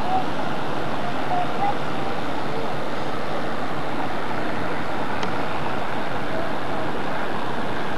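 Steady, even rushing outdoor noise, with a few faint short chirps in the first couple of seconds and a faint tick about five seconds in.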